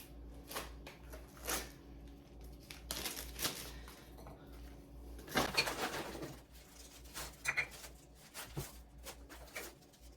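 Plastic snack baggies rustling and crinkling as snacks are portioned into them, with scattered small clicks and taps. A low steady hum runs underneath.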